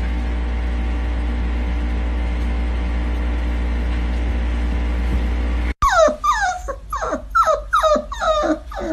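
Puppy whining in a rapid run of short cries, each falling in pitch, about three a second, starting about six seconds in. Before that there is only a steady low hum.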